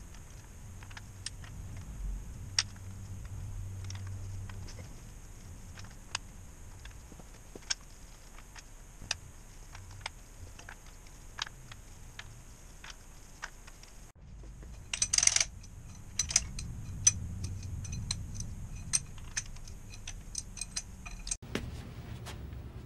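Light metallic clicks and clinks of small steel engine parts and tools as hands work on an Isuzu 4BD2T diesel engine block, with a short rattle about two-thirds of the way through.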